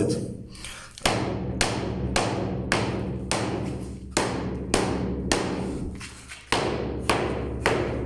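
Hammer tapping a semi-dry cement-sand floor screed about twice a second, each blow a hollow knock with a rattle. The screed has come away from its base and drums loose.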